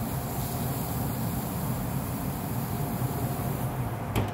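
Burgers sizzling on a pellet grill, a steady hiss over a low hum. Near the end the grill's metal lid shuts with one sharp clank.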